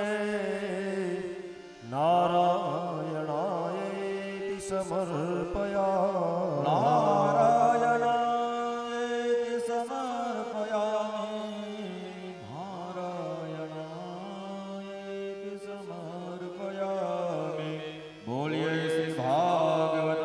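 A voice chanting mantras in long, drawn-out phrases that waver in pitch, with short pauses for breath about 2 seconds in, around 12 seconds and near 18 seconds.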